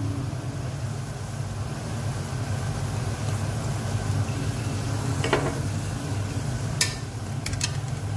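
Chicken sizzling as it fries in oil in a metal kadhai, over a steady low hum. A metal slotted spoon scrapes against the pan about five seconds in, then clinks against it several times near the end as it stirs.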